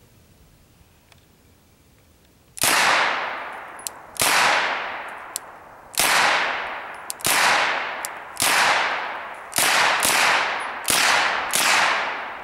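A semi-automatic IMI Uzi carbine in 9mm Parabellum fires about nine single shots, starting a couple of seconds in, at an unhurried pace of roughly one every one to one and a half seconds. Each loud crack rings out in a long fading echo.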